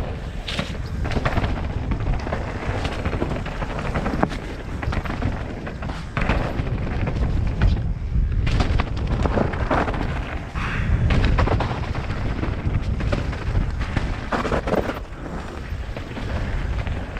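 Nukeproof Mega RS mountain bike descending a wet, stony trail: heavy wind rumble on the microphone, with tyres crunching over loose rock and frequent sharp knocks and rattles from the bike as it hits stones.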